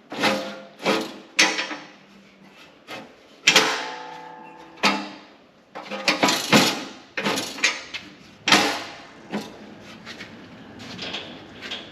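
Irregular hammer blows on sheet steel, about a dozen, with the metal ringing on after some of them; the longest ring follows a heavy blow about three and a half seconds in.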